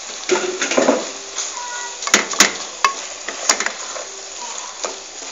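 Wooden spoon stirring shredded chicken through sizzling tomato sauce in a metal pot, scraping, with several sharp knocks of the spoon against the pot about two to three and a half seconds in.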